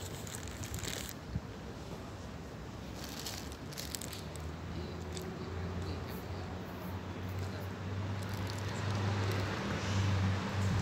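A low, steady engine hum that sets in about four seconds in and grows gradually louder, with light crinkling of a paper burger wrapper handled during eating.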